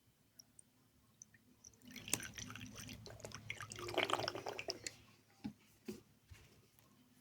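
Acrylic nail monomer trickling and dripping as it is poured from its bottle into a small dish, starting about two seconds in and lasting about three seconds, with a few light clicks of the bottle and dish around it.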